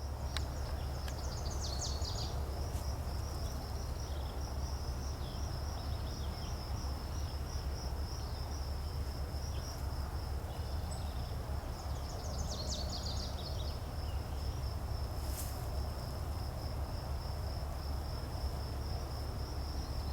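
An insect trilling steadily, a high-pitched, evenly pulsed note that does not let up, with a low rumble underneath. Brief flurries of chirps come about two seconds in and again about thirteen seconds in.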